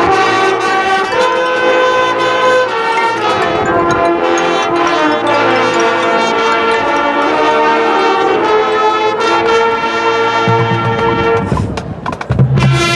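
High school marching band playing its field show: brass section holding loud sustained chords. Near the end the sound drops briefly, with a few percussion hits, before the full band comes back in.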